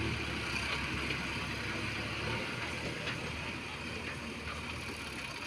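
Distant diesel engines of a backhoe loader and a tractor running, a steady low rumble under an even hiss; the rumble eases a little about two seconds in.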